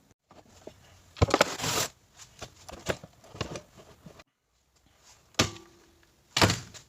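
Scattered knocks, clicks and short scraping bursts of metal parts and tools being handled while the burnt A/C compressor is opened up. The loudest scrape comes about a second in.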